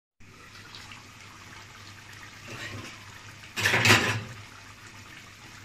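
Beef curry simmering in a pot, a steady watery bubbling noise, with a short louder burst of noise about three and a half seconds in as the pot is uncovered.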